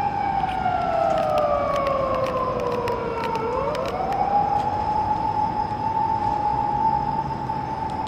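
Emergency vehicle siren wailing: it holds a high tone, glides slowly down over about three seconds, then swings quickly back up about halfway through and holds high again.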